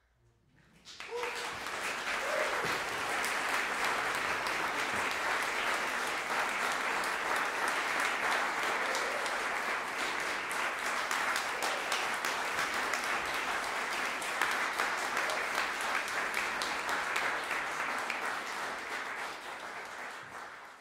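Audience applauding, starting about a second in and tapering off near the end.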